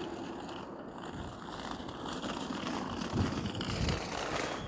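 Urban street ambience: a steady hum of traffic, with a few soft low thumps about three seconds in.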